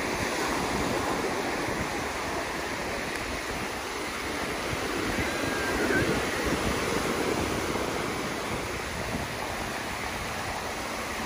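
Ocean surf: small waves breaking and washing up a sandy beach, a steady rush that swells a little about halfway through.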